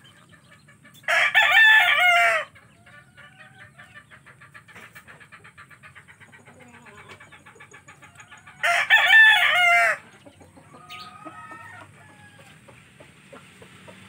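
Hennie (hen-feathered) rooster crowing twice, two short crows about seven seconds apart, with fainter clucking in between.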